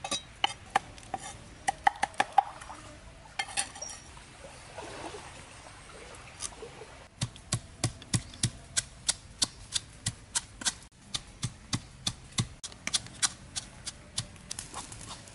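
Cleaver chopping chilies on a wooden board in quick taps. After a short lull of about four seconds, a wooden pestle pounds chilies in a coconut-shell bowl, a steady thud about two to three times a second.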